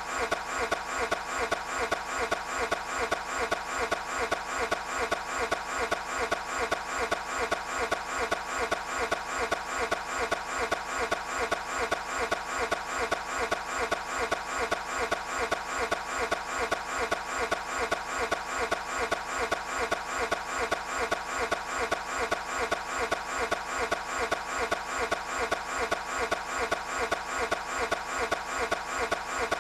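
A Toyota 86's engine cranking on its starter without catching, a repetitive rhythmic churn about three beats a second, looped on and on: the car won't start.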